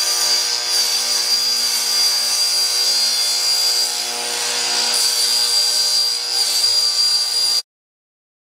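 Table saw running steadily with a high whine as it rips a thin 1-inch strip from 4 mm okoume plywood; the sound stops abruptly near the end.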